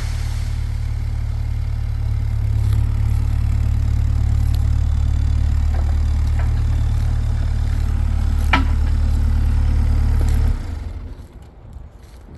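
Engine idling steadily with a deep low hum, cutting off abruptly about ten and a half seconds in. There is a sharp knock about eight and a half seconds in.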